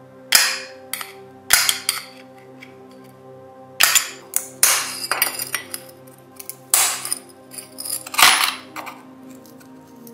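Steel screwdriver scraping and prying at a rusty brass oil-lamp burner, making irregular metal clinks and short grating scrapes.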